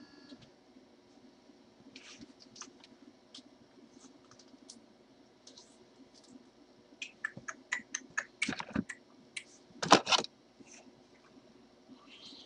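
Scattered small clicks and taps, with a quick run of them from about seven to nine seconds in and one sharper click around ten seconds.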